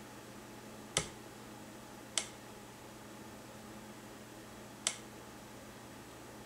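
Three short, sharp clicks, irregularly spaced about a second, two seconds and five seconds in, over a faint steady hum.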